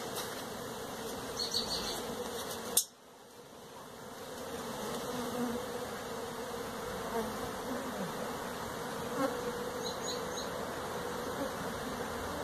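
Steady, dense buzzing of a large honeybee colony, with many bees in flight around their exposed comb. A single sharp click about three seconds in, after which the buzzing drops away and builds back over a couple of seconds.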